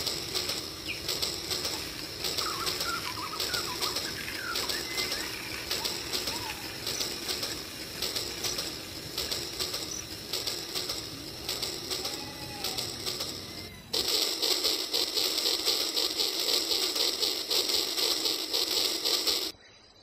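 Toy train's small electric motor and gears whirring with a fast, steady clatter as it runs along plastic track, getting louder about fourteen seconds in. A few bird chirps come through in the background.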